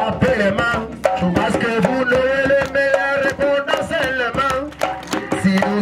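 Mbolé music: a quick hand-drum beat under a steady melodic line.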